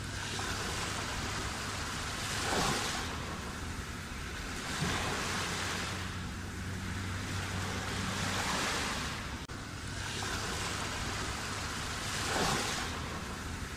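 Sea surf: waves breaking and washing in, swelling to a louder surge every few seconds.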